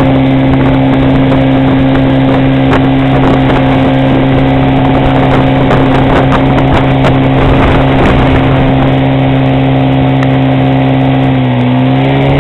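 Outboard motor of a towing motorboat running steadily at planing speed, over the rush of water from the wake. Near the end the engine note dips briefly and settles at a different pitch.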